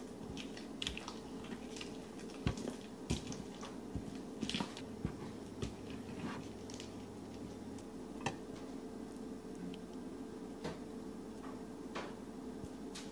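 Spatula folding thick cake batter in a glass mixing bowl: wet squishing with irregular sharp taps and scrapes against the glass. Near the end the batter is scraped out into a metal cake pan.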